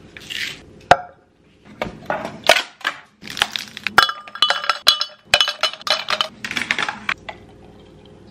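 A brief grinding hiss from a pepper grinder, then a sharp click. From about two seconds in, ice cubes are cracked out of a plastic ice cube tray and dropped into a glass: a quick run of cracks and clinks with ringing glass tones, stopping near the end.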